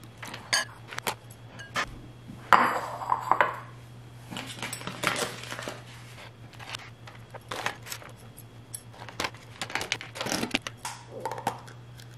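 Metal chopsticks clicking and tapping against ceramic bowls as food is served out of an aluminium foil tray. A louder rustle of noodles and foil comes about two and a half seconds in.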